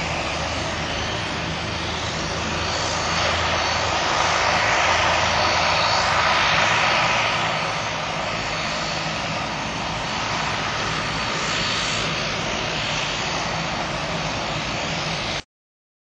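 Boeing 747-200 freighter's four turbofan jet engines running, a steady roaring rush with a faint high whine, growing louder for a few seconds in the middle and then easing. The sound cuts off suddenly near the end.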